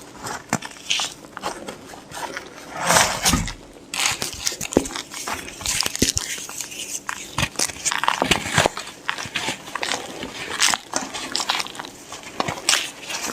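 Block of white Plain Jane gym chalk being crushed and crumbled: dense, irregular crisp crunching and crackling, with a louder crunch about three seconds in.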